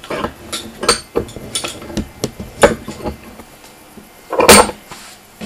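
Hemingway Kits instrument vice being handled and repositioned in its holder: a run of irregular metal clicks and knocks, with one louder clunk a little after four seconds in.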